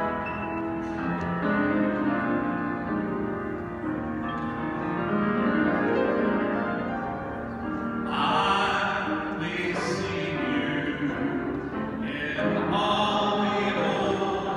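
Large mixed choir singing with grand piano accompaniment. The voices swell louder and brighter about eight seconds in, and again near the end.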